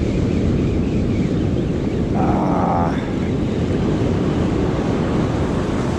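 Wind buffeting the microphone over surf breaking on the beach, a loud steady rumble. A short buzz sounds about two seconds in.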